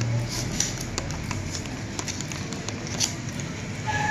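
Metal teaspoon stirring a watery, foamy shampoo-and-water mixture in a small plastic cup, with irregular light clicks and scrapes of the spoon against the cup.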